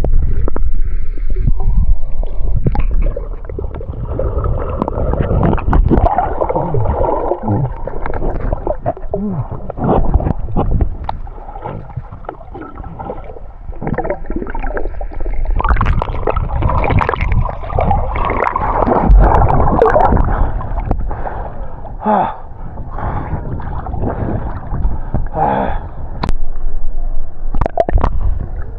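Muffled gurgling and sloshing of lake water around a camera held underwater, with uneven swells and knocks as the water moves around it.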